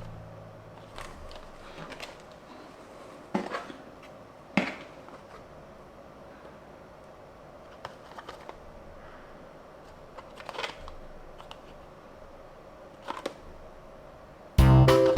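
Handling of a die-cast Tomica toy car and its packaging: scattered small clicks and short rustles with pauses between them. Guitar music comes in near the end.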